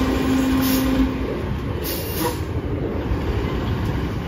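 Rear-loader garbage truck's diesel engine running steadily, with a steady whine that cuts off about a second in. Two short hisses of air follow, one near the start and one about two seconds in.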